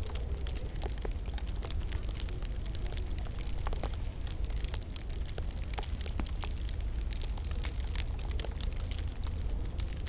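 Wood fire in a log burner crackling, with many small irregular pops and snaps over a steady low rumble.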